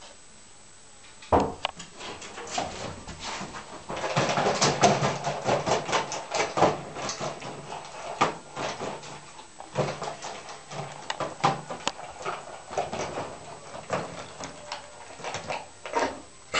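Rhodesian Ridgeback eating dry kibble from a stainless steel bowl: quick, irregular crunching and clattering against the metal bowl, starting about a second in and busiest a few seconds later.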